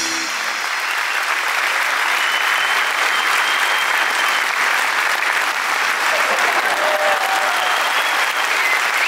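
A concert audience applauding steadily. The band's last note cuts off just at the start.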